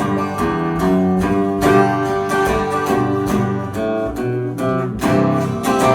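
Acoustic guitar strummed through an instrumental break between verses of a folk song, with no singing.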